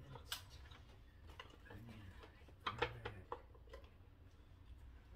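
Light clicks and taps of spice jars and their lids being handled, with a louder cluster of knocks a little past the middle.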